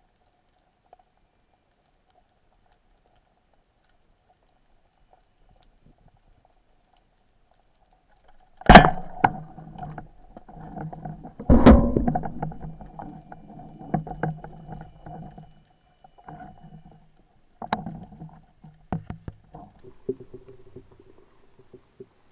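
A speargun fires underwater with a sharp crack after near silence. A second loud knock follows about three seconds later, then scattered knocks and rumbling as the speared dentex struggles on the spear at the seabed.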